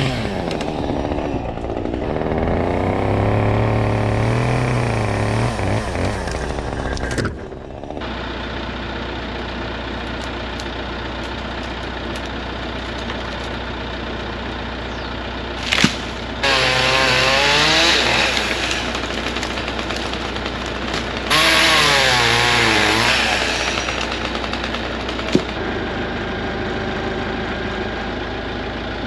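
Chainsaw running and cutting, revving in the first few seconds and in two more bursts later on, over the steady idle of a telehandler's engine.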